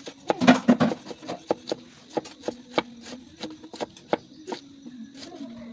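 Kitchen knife slicing through fresh bamboo shoot on a cutting board: irregular sharp cuts, a quick run of several together about half a second in, then about two or three a second.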